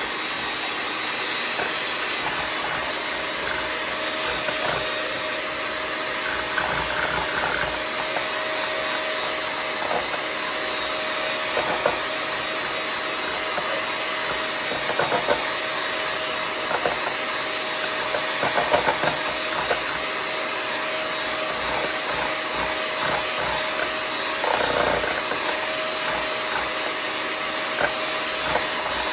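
Electric hand mixer running steadily, its beaters whipping instant coffee, sugar and hot water into foam in a ceramic bowl, with a steady motor hum and a few brief louder knocks.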